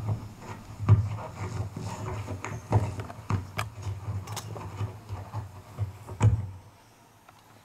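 Microphone on a stand being handled and repositioned: a run of irregular thumps, bumps and clicks through the mic, stopping about six and a half seconds in.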